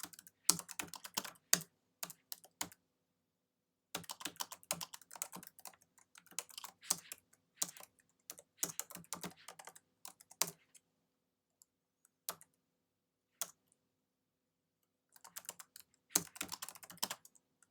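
Typing on a computer keyboard, in quick runs of key clicks with pauses between them, a few lone keystrokes in the middle.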